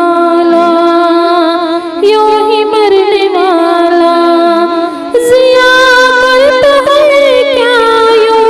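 A voice singing a slow melody with long held, ornamented notes, over music.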